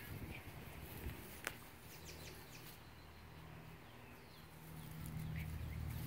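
Outdoor ambience: faint short bird chirps over a low steady hum that grows louder near the end, with a couple of soft clicks.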